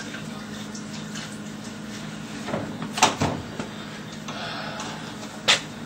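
Knocks and clicks from handling a beer keg and its CO2 gas fittings, loudest about halfway through, with one sharp click near the end, over a steady low hum.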